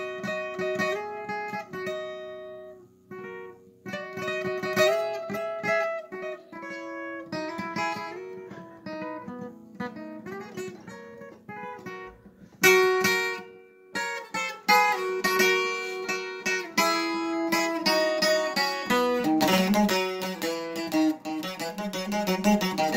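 Acoustic guitar playing a requinto-style lead: runs of single picked notes with ornaments, broken by short pauses, turning to fuller strummed chords near the end.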